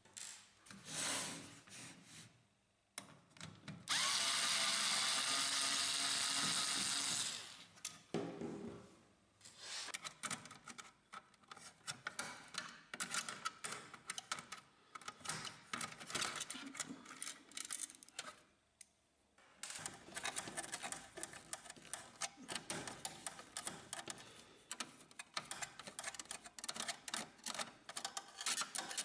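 Cordless electric screwdriver motor whirring steadily for about three seconds as it backs out a screw, after a brief burst about a second in. Then a long run of irregular small clicks and rattles.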